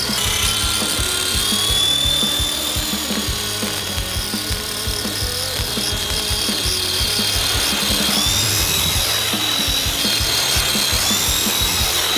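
Electric RC helicopter's motor and rotors whining steadily in flight, the pitch stepping up about eight seconds in and again near the end.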